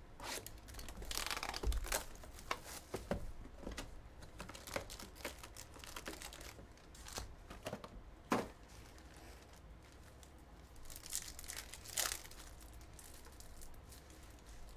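Trading-card packs being torn open and their foil wrappers crinkled. Scattered sharp clicks and taps come from the cards and box being handled, with longer stretches of rustling about a second in and again near the end.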